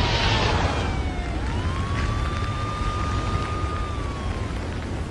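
A siren wailing, its pitch falling, climbing back about a second and a half in, holding, then falling again near the end, over a steady hiss and low rumble.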